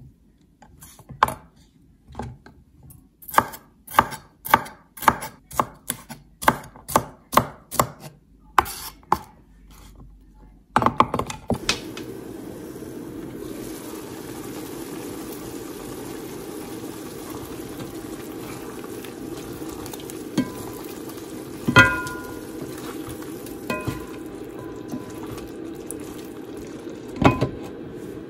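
A kitchen knife chops green bell pepper on a wooden cutting board: about ten knocks of the blade on the board, roughly two a second. About eleven seconds in, this gives way to the steady simmer of chicken wings braising in sauce in an enamelled cast-iron pan, with a few metal clinks against the pan, the last as the glass lid is set on near the end.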